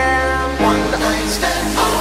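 Electronic remix music: held synth chords that shift about half a second in, with short beats building toward the end.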